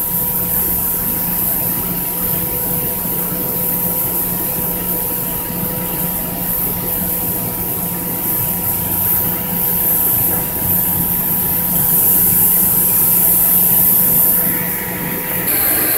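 Steady hum and hiss of workshop machinery running, with a thin constant whine over it; the sound changes abruptly near the end.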